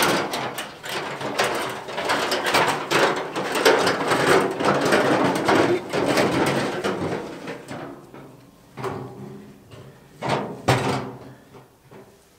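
Rusty steel oil drum rolled on its side across the ground, a loud, continuous clattering rumble. Near the end it gives way to a few separate knocks as the drum is stood upright.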